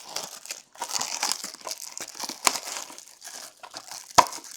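Plastic wrapping crinkling and tearing as a sealed trading-card box is opened by hand, with one sharp snap about four seconds in.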